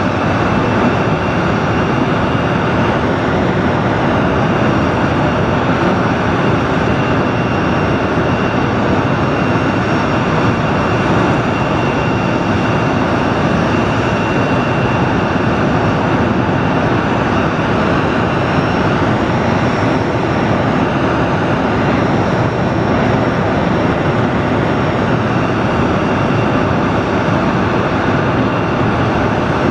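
Boeing 737-200's Pratt & Whitney JT8D turbofan engines running at taxi power as the jet rolls slowly past, a steady loud rush with a thin high whine over it.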